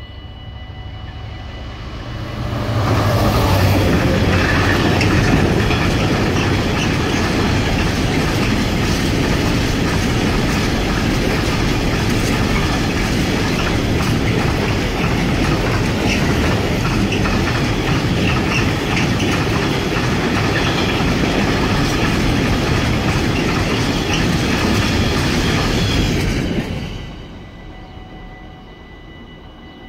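Container freight train passing close by. The locomotive's approach builds over the first few seconds, then a long string of container wagons rolls past loudly and steadily. The sound drops away abruptly a few seconds before the end as the last wagon clears.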